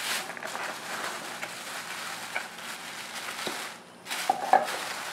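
Thin plastic carrier bags crinkling and rustling as they are handled, with a short break a little before the end and a few louder crackles after it.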